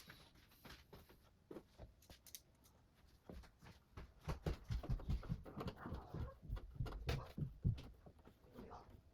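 Computer parts being handled and fitted during a desktop PC build: irregular clicks, taps and dull knocks, heavier and more frequent in the second half.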